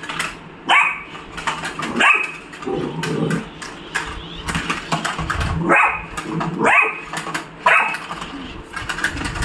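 A dog barking at a motorised toy car it is fighting with: about five sharp barks, roughly a second apart, with light clicking between them.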